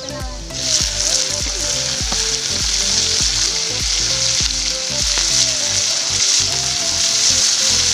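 Food frying in hot oil in a metal pan over a wood fire: a loud, steady sizzle starts suddenly about half a second in as more food goes in on top of frying shallots and garlic. Background music with a steady beat plays underneath.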